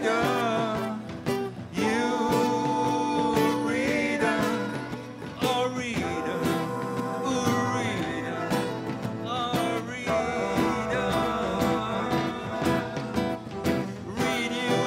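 Live rock band playing an instrumental passage with a country-tinged feel: acoustic and electric guitars, keyboard and a drum kit.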